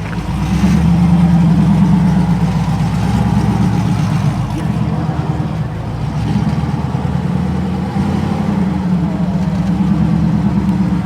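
A car engine running close by with a deep, pulsing exhaust rumble that swells a little about a second in and again near the end.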